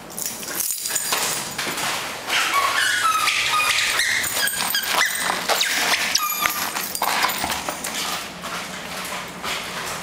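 Bull terrier whining and squealing excitedly in play: high-pitched, wavering cries from about two seconds in until about seven seconds, mixed with clicks and scrabbling of its claws on a tile floor.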